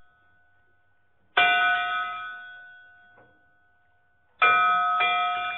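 A bell struck three times: once about a second and a half in, then twice in quick succession near the end. Each strike rings with several clear tones that fade over a couple of seconds.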